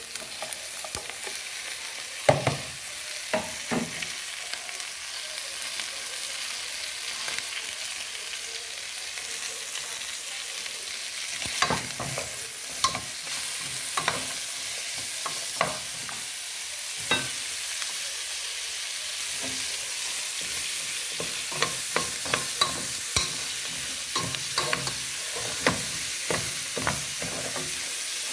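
Chicken pieces with onion, tomato and green pepper sizzling as they fry in a metal pot: a steady hiss, with a spoon stirring and knocking sharply against the pot now and then, more often in the second half.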